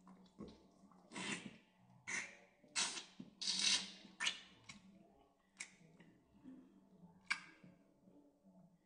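Close-up eating sounds of a person gnawing and sucking meat off a lamb chop bone: a string of wet smacks and slurps, about seven in all, loudest and closest together around the middle.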